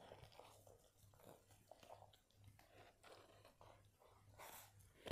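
Faint chewing of a mouthful of kunafa, with light scrapes and taps of a plastic spoon on a plastic tray, and a sharp tap near the end.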